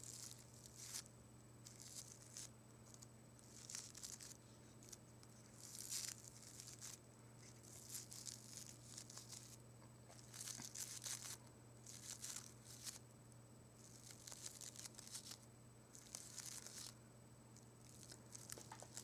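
Fingertips brushing and rubbing through the petals of a fresh flower bouquet of carnations and papery statice, giving soft, crisp rustling and crinkling in short, irregular bursts.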